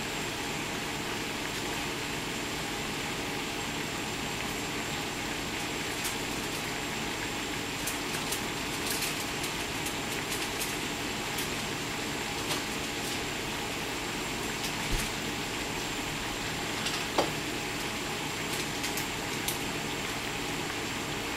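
Chicken karaage deep-frying in a pan of hot oil: a steady sizzling hiss with scattered pops and crackles.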